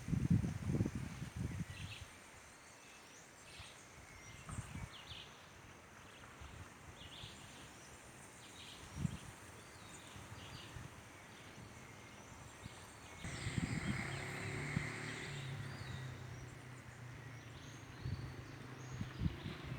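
Small birds chirping in short, scattered calls, with low rumbles in the first couple of seconds and a steady low engine-like hum coming in about two-thirds of the way through.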